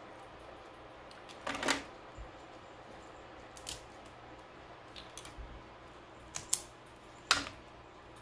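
Cooked crab shell cracking and snapping as it is broken apart by hand: a handful of short, sharp cracks and clicks at irregular intervals.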